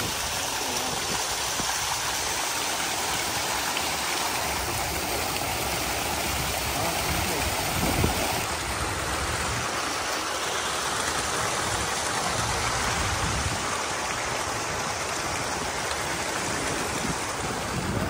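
Water rushing steadily through the concrete trout tanks' feed channels, with a single brief knock about eight seconds in.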